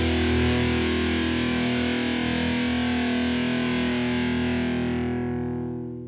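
Intro music: a single distorted electric guitar chord held and ringing, fading out near the end.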